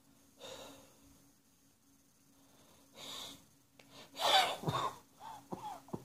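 A person drawing two audible breaths, then a loud cough about four seconds in followed by a run of shorter coughs: coughing from spring allergies.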